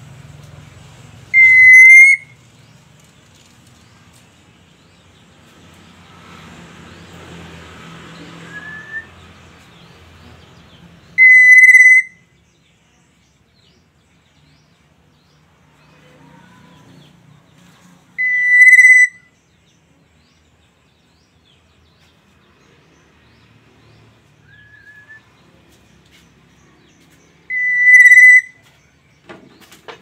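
Black-naped oriole giving four loud, short whistled calls, each under a second on one steady pitch, spaced about seven to ten seconds apart, with a few faint short rising whistles between. This is the kepodang's lure call that other orioles answer.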